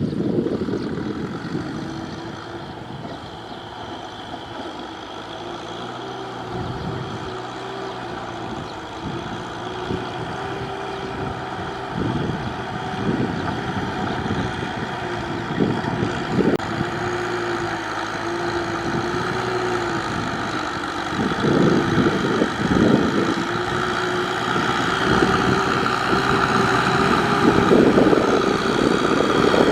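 Tractor engine running steadily while ploughing deep mud, its note wavering slightly, with short rougher spells now and then. It grows louder toward the end.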